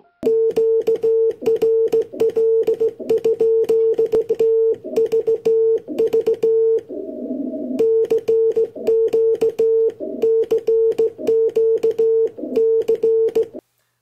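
Morse code sent by hand on a telegraph straight key: a steady mid-pitched beep switched on and off in short dots and longer dashes, with a sharp click at each keying. A brief rough noise interrupts the beeps about seven seconds in, and the sending stops just before the end.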